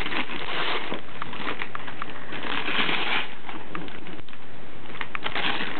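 Wrapping paper crinkling, rustling and tearing continuously as a small child rips it off a gift, with many small crackles.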